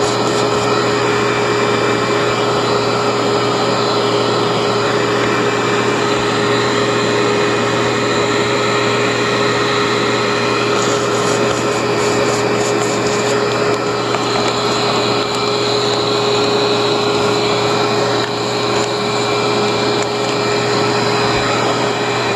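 Cleartrak/Workhorse upright vacuum's motor running steadily with a whine, drawing suction through a tube held to the dust-filled brush housing. It is switched off at the very end and its pitch begins to drop as it winds down.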